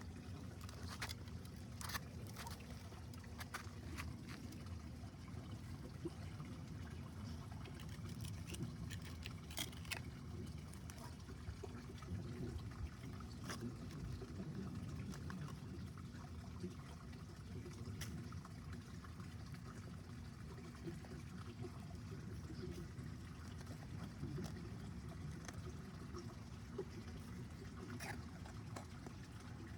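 Pond waterfall running, water trickling and pouring steadily, with scattered light knocks.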